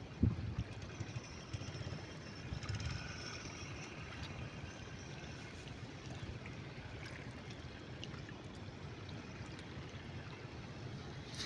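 River water trickling and sloshing, with a low thump just after the start and a few smaller knocks in the first few seconds.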